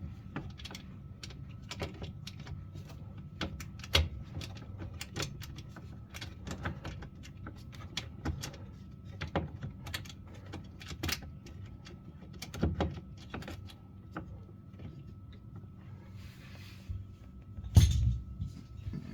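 Rapid, irregular small metallic clicks and clinks as bolts are fitted and tightened on the cover under a washing machine, with a louder knock near the end.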